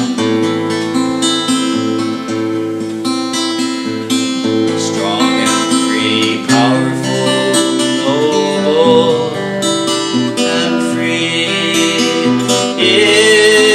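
Acoustic guitar playing an instrumental interlude in a folk song, strummed and picked chords with a wavering melody line over them.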